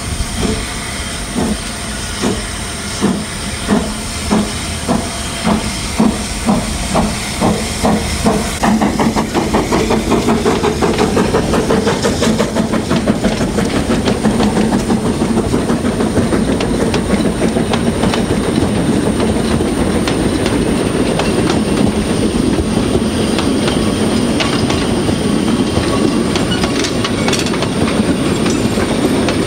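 Small narrow-gauge steam locomotive pulling away with a train, its exhaust chuffs coming steadily quicker for the first eight seconds or so. Then the steady rumble and clatter of the carriage wheels on the rails as the train passes close by.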